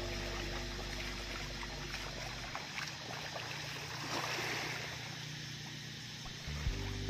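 Shallow seawater sloshing and splashing around a person's legs as he wades, with scattered small splashes from his steps; low steady music runs faintly underneath.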